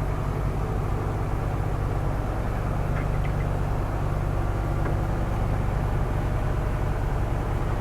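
Semi-truck's diesel engine and road noise inside the cab while driving: a steady low drone.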